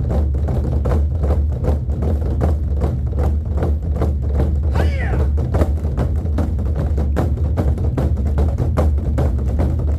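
A Korean buk (barrel drum) ensemble beating a fast, dense rhythm with a deep boom. The piece is meant to evoke galloping war horses. About five seconds in, a cry rises and falls over the drumming.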